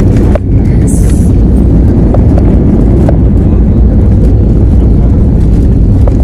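Loud, steady low rumble inside the cabin of an Airbus A320-family jet during its landing rollout just after touchdown, with the ground spoilers raised: tyre, landing-gear and engine noise as the aircraft slows on the runway. A few light knocks and a brief hiss about a second in.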